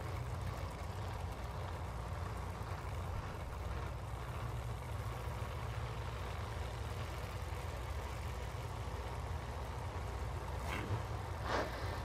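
Pro Modified drag-racing car engines idling at the starting line, a steady low rumble. Near the end come a couple of brief, sharper sounds.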